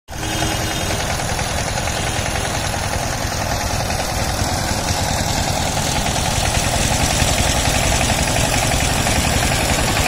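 Two-wheel power tiller's single-cylinder diesel engine running steadily with a fast, even knock.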